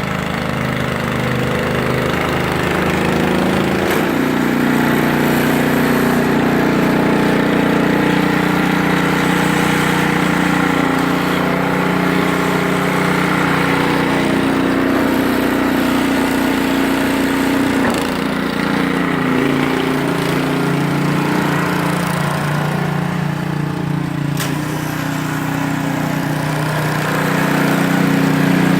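Small engine running steadily under load, its pitch stepping up about four seconds in and dipping briefly near eighteen seconds.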